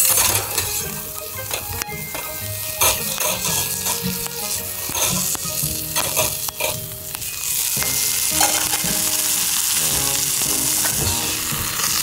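Pork belly slices sizzling in oil in a small iron frying pan over a campfire. Sharp clicks and scrapes of utensils on the pan come through the first half. After that the sizzle carries on as a steady hiss.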